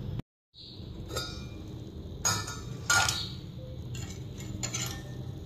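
Several light clinks of cookware against a saucepan, spaced a second or so apart, over a steady low hum. The sound drops out completely for a moment near the start.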